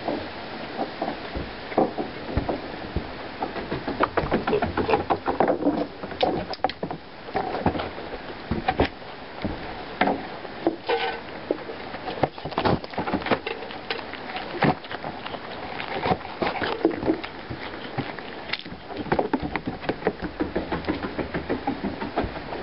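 A pig crunching and chewing small treats off a doormat right by the microphone, in runs of quick crunches with short pauses between.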